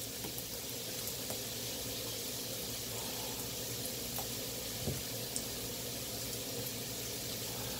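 Chicken thighs sizzling steadily on a Hamilton Beach electric grill, with a few faint clicks around the middle from a stuck barbecue-sauce bottle cap being twisted.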